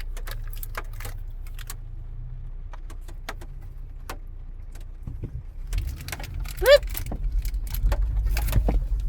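Jeep engine running under a steady low rumble, with scattered sharp clicks and rattles. About six seconds in the rumble grows louder as a second Jeep drives across the rocky creek bed.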